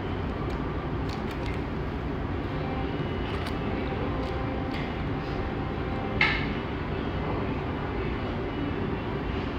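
Fast-food restaurant room noise: a steady low rumble with scattered light clicks and clinks, and one sharper, louder click about six seconds in.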